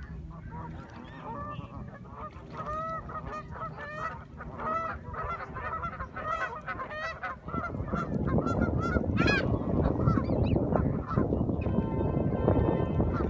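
Canada geese honking in a quick series of short calls. About halfway through, a rough rushing noise comes in and lasts to the end.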